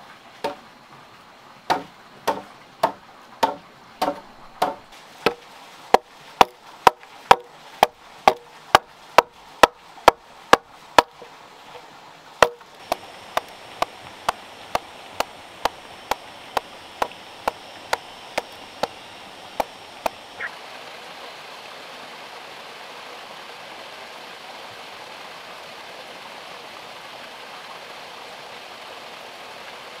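Wood being chopped with a hand tool: sharp, regular strokes about two a second, with a short break near the middle. The chopping stops about two-thirds of the way in, leaving a steady, even hiss.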